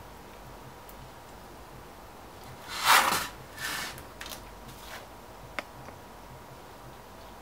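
Gloved hands handling pump parts on a workbench: one short, loud rustle about three seconds in, a few softer rustles after it, and a light click a couple of seconds later.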